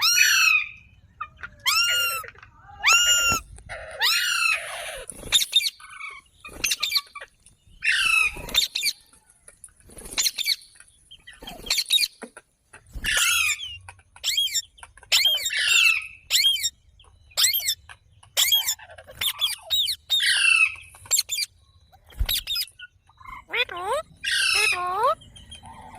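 Green parrot calling: a run of short calls, each sliding down in pitch, repeated about once a second with a brief lull partway through.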